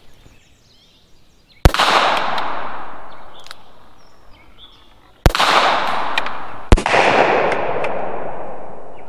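Three shots from a .22 Magnum handgun: one about two seconds in, then a pair about a second and a half apart past the middle, each followed by a long echo that dies away over a couple of seconds.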